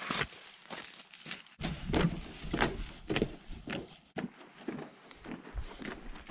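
Footsteps of hiking boots on a wet trail and plank boardwalk at a steady walking pace of about two steps a second, broken off abruptly twice.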